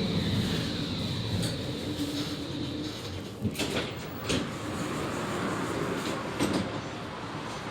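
Končar TMK 2200 low-floor tram slowing down: the electric drive's whine falls in pitch as the running noise dies away, then a few short clunks and knocks over a steady low rumble.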